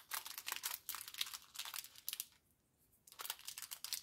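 Crinkling and crackling of papercraft materials being handled: a dense run of small crackles that stops for a moment about two and a half seconds in, then resumes.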